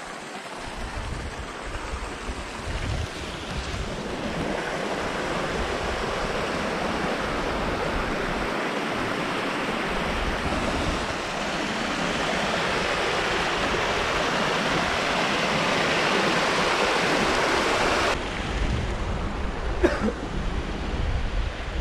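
Mountain stream rushing over rocks, a steady hiss of water that grows gradually louder. About three-quarters of the way through the sound changes abruptly to a thinner rush with a low wind rumble on the microphone, and a short click follows.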